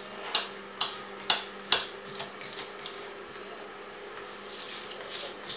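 Kitchen knife chopping spring onion on a stone chopping board: sharp taps of the blade on the board, about two a second, fading to lighter taps in the second half.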